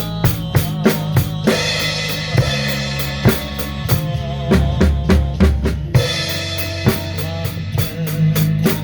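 Drum kit played in a steady pop beat, with bass drum, snare and cymbal strokes over the song's recorded music. A denser cymbal wash runs from about a second and a half in to about six seconds.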